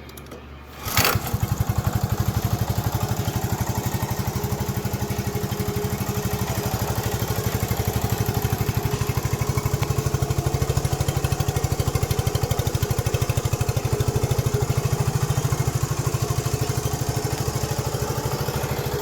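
1970 Honda US90 trike's small single-cylinder four-stroke engine starting about a second in, then idling steadily with an even, rapid putter.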